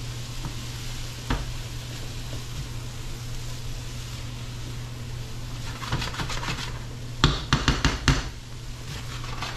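Shrimp and cauliflower rice sizzling in a skillet while a spatula stirs and scrapes through it. The spatula knocks against the pan once early on and then in quick clusters near the end, the loudest of them close together. A steady low hum runs underneath.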